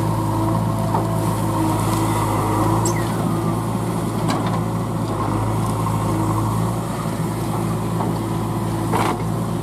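JCB backhoe loader's diesel engine running steadily under digging load while the backhoe bucket scoops soil and dumps it into a tractor trolley. A few sharp clanks and scrapes from the bucket and falling clods come about three, four and nine seconds in.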